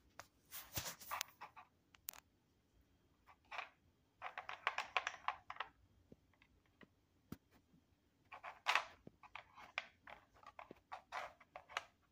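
Plastic treat puzzle clicking and clattering in short runs of quick clicks as a cat noses and paws at its sliding leaf and ladybird pieces; the longest run comes around the middle, with more near the end.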